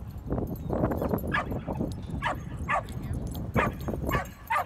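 A dog barking in a run of short, high yips, several in a few seconds, each dropping in pitch.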